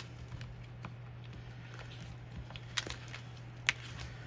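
Quiet handling of sticker sheets and paper on a desk, with faint scattered ticks and two sharp clicks about a second apart in the second half, over a steady low hum.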